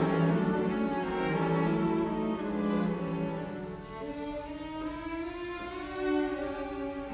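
Slow background music on bowed strings, with violin over a lower cello line, playing long held notes.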